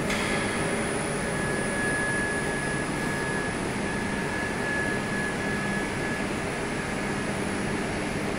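Steady hum and whir of running industrial machinery, with a faint high whine from about a second in to about six seconds.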